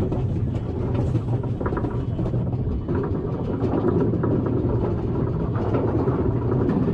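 Roller coaster train rumbling and clattering along its track, with a steady low hum and frequent sharp clacks.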